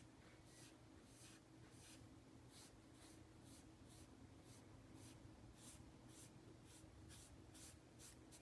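Faint, quick brushing strokes of a sponge-tipped pastel applicator rubbing PanPastel onto paper, about two strokes a second, over a faint low hum.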